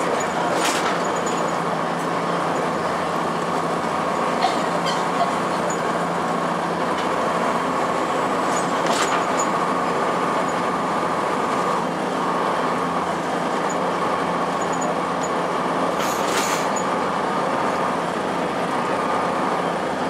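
Inside a 2002 Blue Bird CS transit bus on the move: its Cummins ISC inline-six diesel runs at a steady pace, with road noise. A few sharp clicks of cabin rattle come through.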